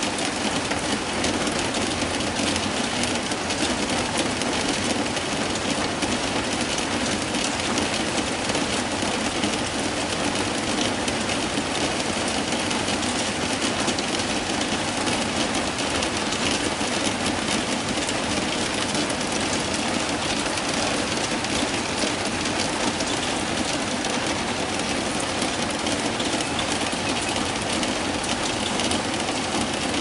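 Steady rain falling on a roof: a dense, even patter of many small drops, without let-up.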